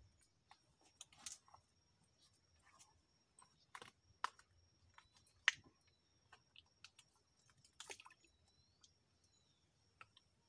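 Mostly quiet, with scattered faint sharp clicks and knocks, the loudest about four and five and a half seconds in, over a faint steady high-pitched tone and a few faint chirps.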